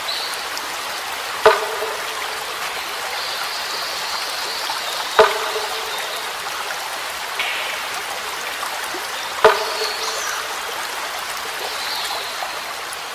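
Steady running, trickling water. Three sharp strikes with a brief pitched ring cut through it, about a second and a half, five, and nine and a half seconds in.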